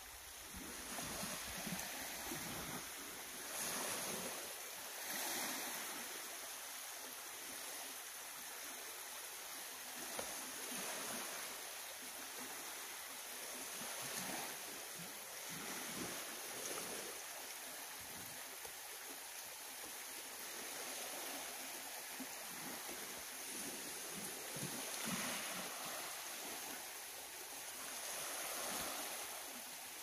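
Small waves of a calm sea lapping and washing on a shingle beach, rising and easing every few seconds.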